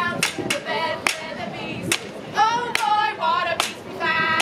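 Live singing by street performers, with sharp claps on the beat between the sung phrases, and a long held note near the end.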